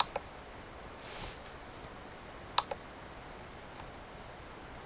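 Two pairs of sharp, light clicks, one right at the start and one about two and a half seconds in, with a brief soft hiss about a second in, over faint steady background hiss.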